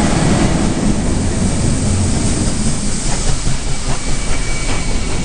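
Steam-hauled passenger train rolling past along a station platform: a steady heavy rumble from the carriages, the tender and the NSW 59 class steam locomotive 5917, with a few sharp clanks about three to four seconds in.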